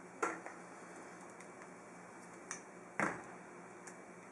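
A few light clicks and knocks of metal pliers being handled and set down on a workbench, the loudest about three seconds in.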